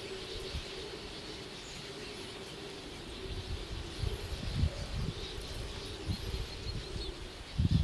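Massed calls of a huge flock of bramblings, a dense continuous chatter of many birds at once. A few short low rushing bursts come through about halfway and again near the end.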